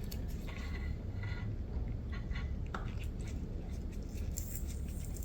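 Small clicks and handling sounds as the pressure-test plug is worked out of an outboard motor's lower unit, with a short hiss of escaping air near the end, showing the unit held pressure.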